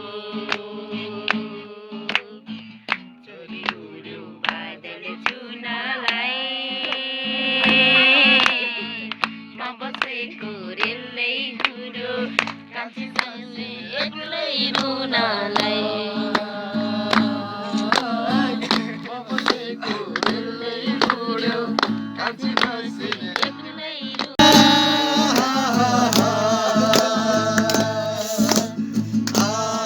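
Music: a Nepali folk song with a melody over a steady drum beat, growing louder and fuller about 24 seconds in.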